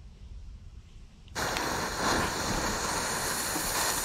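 A firecracker fuse catches about a second and a half in and burns with a loud, steady hiss as it throws sparks.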